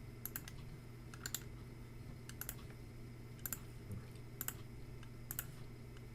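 Scattered clicks of a computer keyboard, a single click or a quick pair about once a second, over a steady low hum.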